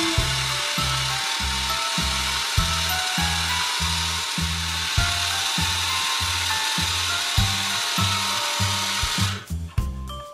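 Toy blender's blending sound: a steady, noisy whir like a small motor, cutting off about nine seconds in, over background music with a steady beat.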